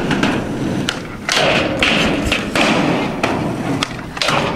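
Skateboard wheels rolling on a concrete skatepark surface, with several sharp thuds and knocks from the board. Near the end the board's tail is popped for a kickflip.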